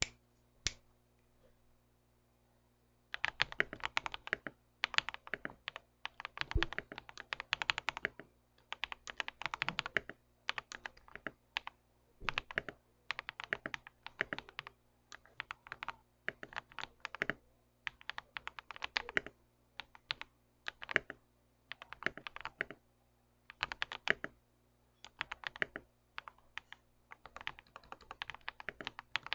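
Typing on a Rakk Ilis mechanical keyboard with PBT keycaps and lubed Akko Radiant Red linear switches. A few lone keystrokes at the start, then fast typing from about three seconds in, in bursts with short pauses.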